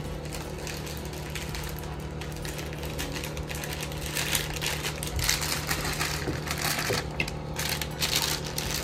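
Thin plastic produce bag crinkling and rustling as it is handled, the crackles coming thicker in the second half, over a steady low hum.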